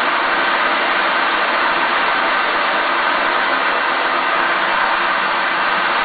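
Waterfall cascading over rocks: a steady, unbroken rush of falling water.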